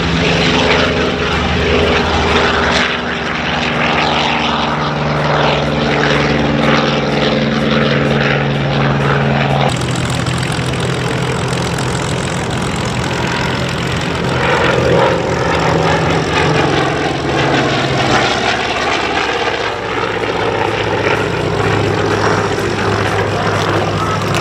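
Douglas EA-1E Skyraider's Wright R-3350 radial engine and propeller running hard as the plane climbs out and flies overhead: a loud, steady, deep drone. The tone changes abruptly about ten seconds in.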